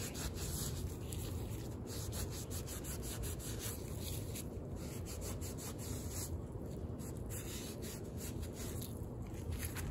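Shop rag scrubbing the metal sealing surface of a tractor PTO bearing cover: a steady scratchy rubbing of cloth on metal as the old sealant is wiped off before resealing.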